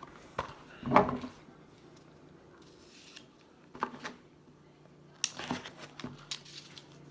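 Card boxes and packaging being handled by hand: scattered light knocks, taps and rustles, busiest about a second in and again in the last couple of seconds.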